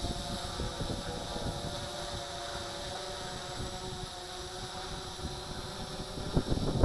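Simtoo Dragonfly Pro quadcopter in flight: its electric motors and propellers give a steady multi-tone hum, with wind rumbling on the microphone.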